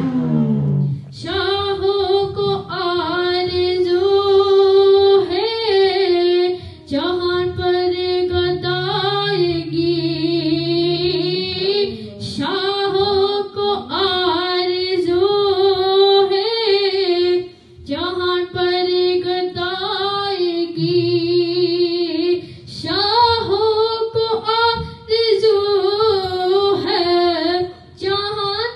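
A high voice singing an Urdu naat, unaccompanied, in long, ornamented phrases with short breaks for breath between them.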